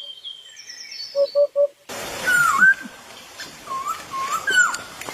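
Morning birdsong from several birds: high chirping notes and a quick run of three low hoots. About two seconds in the background turns noisier, with a bird repeating a swooping whistled call several times.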